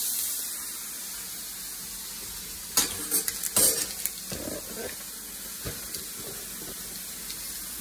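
Hamburger patties frying in a pot: a steady sizzle, with a few sharp clinks and knocks of a utensil against the pan about three seconds in.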